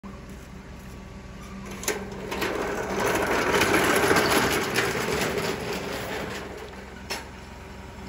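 Large steel-framed sliding gate rolling along its track on its wheels, pulled by hand: a rattling rumble that builds, peaks and fades over about four seconds. A sharp click comes just before the rolling starts and another near the end.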